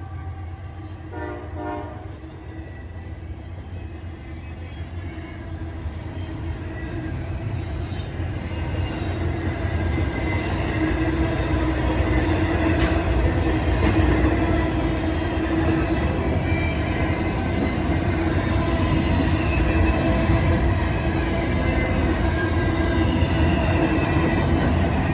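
Diesel freight train approaching, the rumble of its locomotives and cars growing steadily louder, with steady tones over the rumble.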